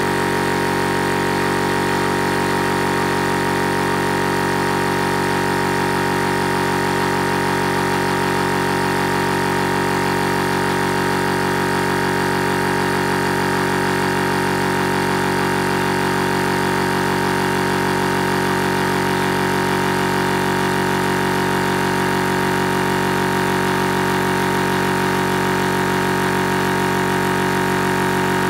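Electric PCP high-pressure air compressor running steadily as it pumps an air bottle up through about 16 to 21 MPa: an even, unchanging mechanical hum.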